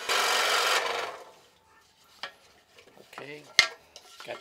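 Scroll saw blade rasping through wood for about a second, dying away as the saw stops. This is followed by a few sharp clicks and knocks as the blade clamp is handled.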